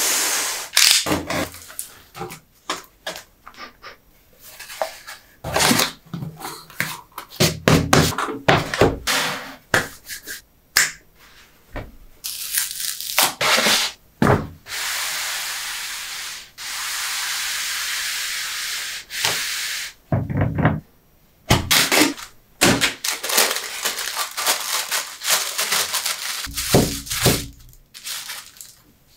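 Unboxing sounds: a cardboard box handled and opened, a kraft paper envelope pulled open, and tissue paper crinkling, with many short taps and knocks throughout. Near the middle come a few longer, steady rasps of paper lasting a couple of seconds each.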